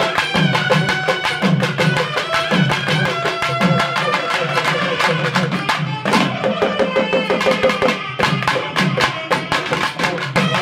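Naiyandi melam folk music: two nadaswaram reed pipes play a wavering melody together over a fast, steady drum rhythm, with a fresh phrase starting around the middle.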